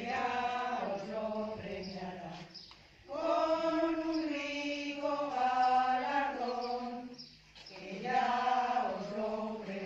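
A group of mostly women singing a hymn to the Virgin together in long held phrases, with short breaks for breath about three seconds in and again about seven and a half seconds in.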